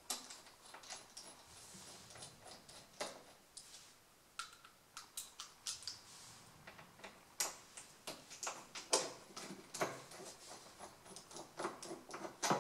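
Irregular small metallic clicks and taps of a screwdriver working the Phillips screws that hold an ATV's plastic fuel tap (petcock) in place.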